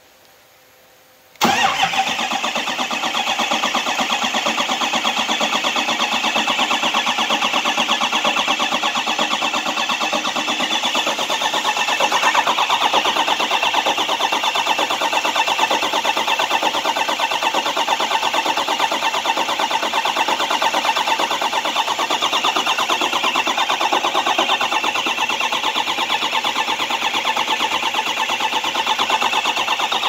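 Ford 6.0 Power Stroke V8 turbodiesel turning over on its starter. It kicks in suddenly about a second and a half in and cranks steadily with a quick even beat without catching: the crank-no-start condition.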